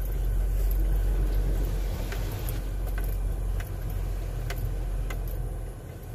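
Car engine idling, a steady low rumble heard from inside the closed cabin, with a few faint clicks.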